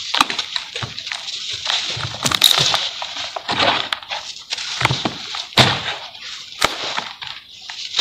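Hands crushing and crumbling dry sand-and-cement lumps: an irregular run of gritty crunches and crackles as the lumps break and powder falls, with a couple of sharper cracks about two-thirds of the way in.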